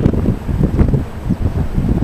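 Strong wind buffeting the camcorder's microphone: a loud, irregular low rumble that rises and falls with the gusts.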